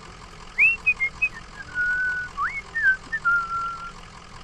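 A person whistling a tune: a string of short notes with quick upward slides and two longer held notes.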